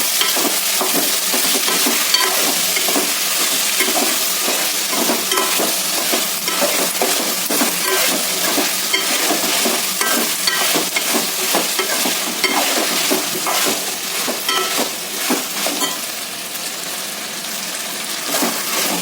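Potatoes, green peas and onions sizzling in hot oil in a pan while a spoon stirs them, clicking and scraping against the pan many times over. The sizzle eases a little near the end.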